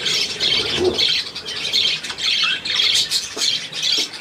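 A flock of budgerigars chattering, a dense unbroken mix of many high, overlapping calls.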